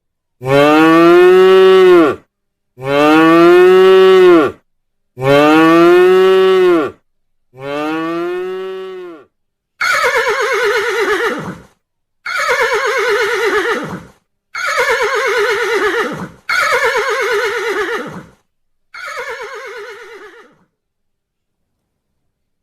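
Cow mooing in a series of long calls. The first four are loud and arch up and then down in pitch. Five rougher calls follow, each falling in pitch.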